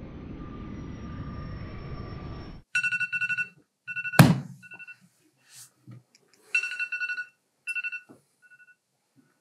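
Steady airport background noise, then a smartphone alarm beeping in short repeated groups. About four seconds in there is one loud thud as a hand comes down on the phone; the beeping breaks off, then returns in shorter bursts.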